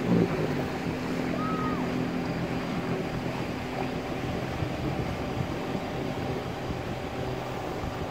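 A steady low engine drone, a hum of several even tones, with a short high chirp about a second and a half in.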